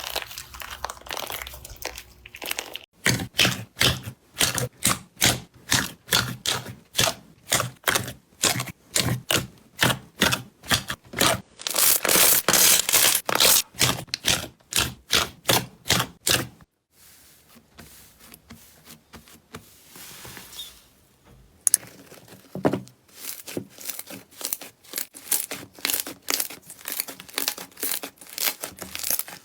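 Slime being worked by hand for ASMR: repeated presses and pulls at about two a second, merging into one continuous stretch about halfway through, then a quieter spell before the rhythmic pressing starts again.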